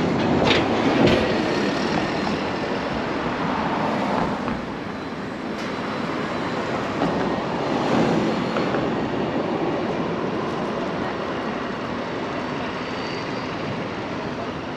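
Street traffic: a city bus passes close near the start, then a steady rumble of passing vehicles.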